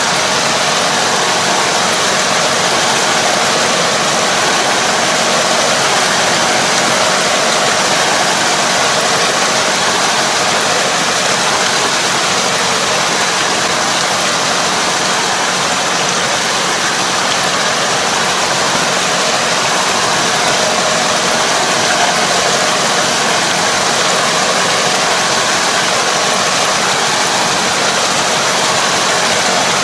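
Steady rush of water and mud churned by a Kobashi rotary harrow puddling a flooded rice paddy, over the even hum of the half-track tractor's engine pulling it.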